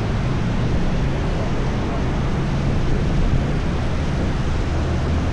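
Steady low rumble and rushing noise of a vehicle on the move, with no distinct events.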